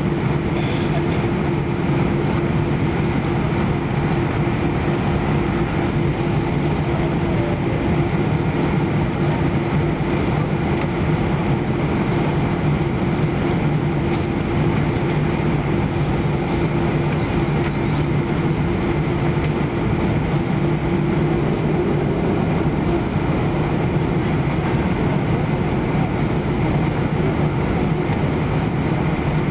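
Airbus A320's CFM56 turbofan engines running at taxi power, heard from inside the passenger cabin over the wing: a steady drone with a low hum and a higher tone.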